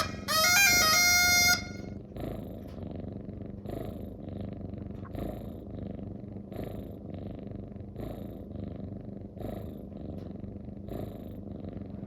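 Munchkin cat purring steadily, the purr swelling with each breath about every second and a half. A short musical jingle of stepped tones plays over the first second and a half.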